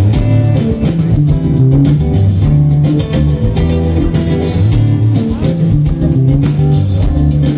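Live acoustic band playing: two acoustic guitars strummed and picked over a steady electric bass line.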